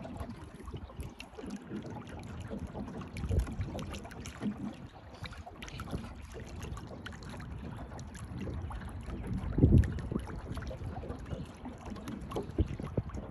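Water lapping and slapping against a small boat's hull, with wind buffeting the microphone in low thumps, the strongest about three quarters of the way through.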